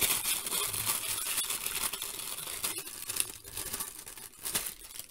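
Sealed printed tissue wrapping crinkling and rustling as it is handled and turned over, loudest in the first couple of seconds and fainter toward the end.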